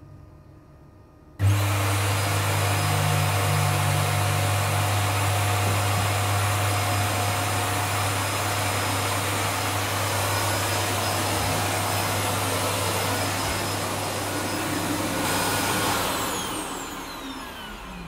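Ecovacs Deebot T9+ auto-empty station's suction motor switching on suddenly about a second and a half in. It runs loud and steady, a low hum under a rushing hiss, as it empties the robot's dustbin into the station's bag. Near the end it winds down with a falling whine.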